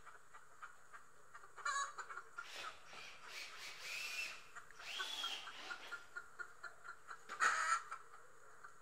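Cordless drill boring a pilot hole into a wooden block: the motor whine rises and falls in short runs through the middle, with a louder short burst near the end.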